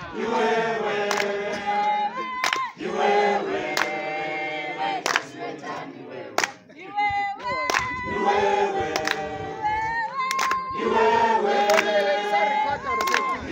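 A crowd of protesters singing a protest song together in several voices, phrase after phrase with short breaks between them. Sharp knocks come through now and then.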